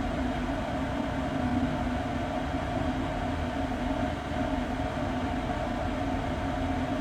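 Air duct or ventilation system drone: steady rushing airflow with a low rumble and a constant two-note hum.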